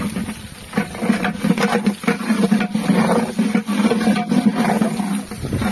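Chopped garlic and green chillies sizzling in hot oil in a large aluminium pot, with a spatula scraping and knocking against the pot as it is stirred many times. A steady low hum runs underneath.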